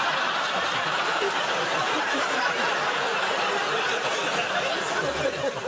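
Studio audience laughing, a steady crowd laugh that thins out near the end.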